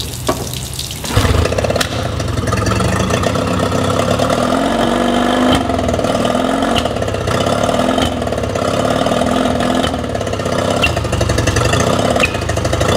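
Yamaha 20 hp two-stroke outboard motor starting about a second in and then running, its speed wavering up and down. The motor has a lean sneezing condition under investigation.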